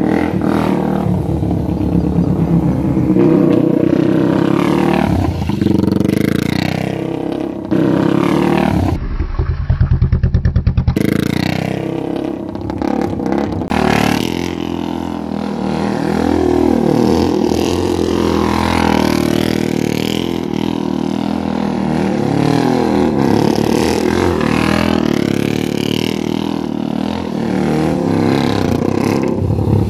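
Superbike racing motorcycle engine revving hard as the bike passes by several times, its pitch rising and falling with the throttle and each pass. About nine seconds in there is a short stretch of a duller, lower engine note before the passes resume.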